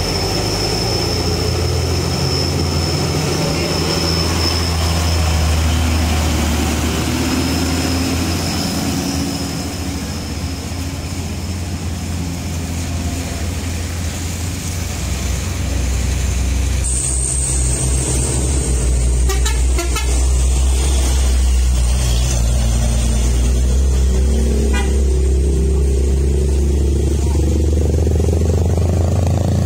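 Heavy diesel trucks and cars climbing a steep hairpin road, their engines running under load with a deep, steady drone. A vehicle horn toots.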